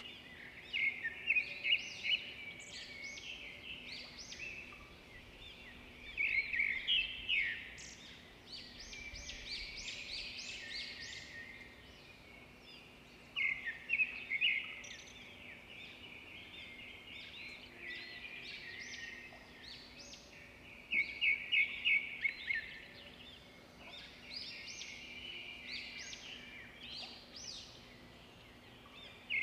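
Birds chirping in repeated bouts of quick, high notes, with short lulls between bouts, over a faint steady low hum.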